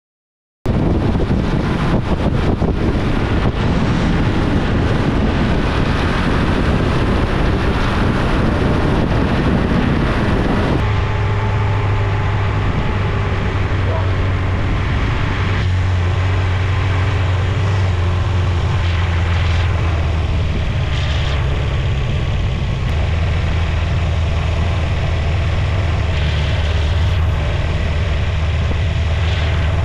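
1987 Suzuki GSX-R1100's inline-four engine running under heavy wind noise on the microphone while riding. About ten seconds in, the wind drops away and the engine idles steadily.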